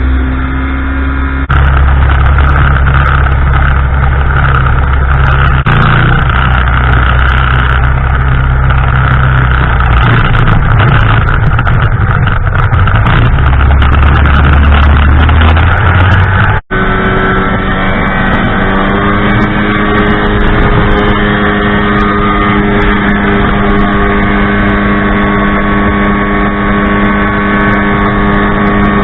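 Ultralight aircraft engine and propeller running at steady power. It starts noisy and hissing, then after a sudden cut about halfway through it settles into a steady drone that holds one pitch.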